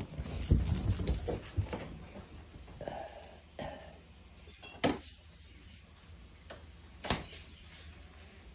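Puppies playing on carpet: scuffling and scrambling in the first couple of seconds, then short dog whimpers. Two sharp knocks come later, about five and seven seconds in.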